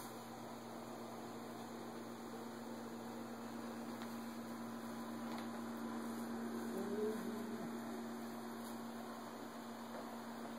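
Steady electrical hum over a faint hiss, with a short rising squeak about seven seconds in.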